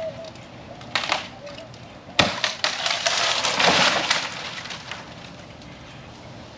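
Dry dead wood snapping: a sharp crack about two seconds in, then about two seconds of crackling and rustling that fades away.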